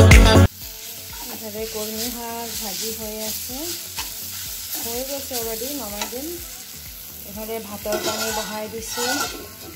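Background music cuts off about half a second in. Then a spatula stirs and scrapes leafy greens frying in a kadai, over a steady sizzle.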